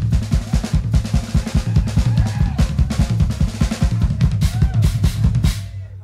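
Live drum kit solo: fast, dense bass drum and snare hits in a driving rhythm that stop abruptly near the end.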